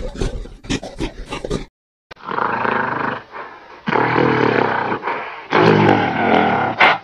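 A gorilla calling: three long, low, rough calls, each about a second long, starting about two seconds in. Before them comes a rapid clattering run of short clicks that stops abruptly.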